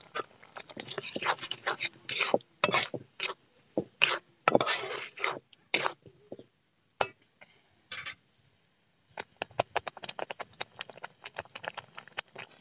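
A flat spatula stirring and scraping a thick tomato-spice masala around a metal kadai, in uneven strokes about twice a second for roughly six seconds. After a pause with two sharp knocks, faint quick ticks follow near the end.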